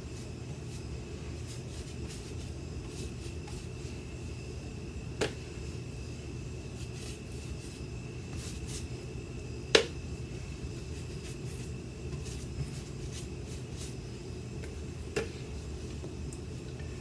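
A paintbrush stroking thick chalk paint onto a wooden dresser drawer, faint scratchy strokes over a steady low hum. Three sharp clicks about five seconds apart, the middle one the loudest.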